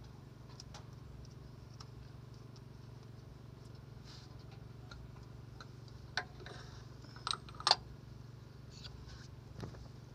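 A handful of sharp clicks and clinks of tools and parts being handled during work on an excavator's main relief valve, the loudest a quick pair about three-quarters of the way in, over a steady low hum.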